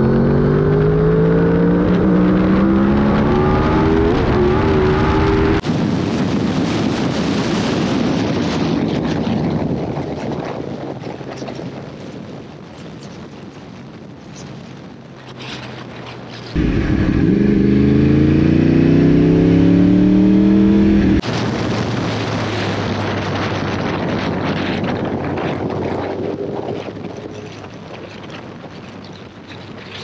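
Sportbike inline-four engines at hard acceleration, the pitch climbing steadily as the revs rise, in two loud runs of about five seconds each. Between the runs, a steadier rush of wind and road noise at speed.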